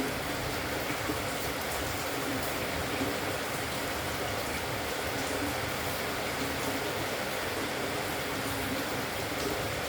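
Spotted dove cooing faintly, low repeated coos every second or two, under a steady hiss.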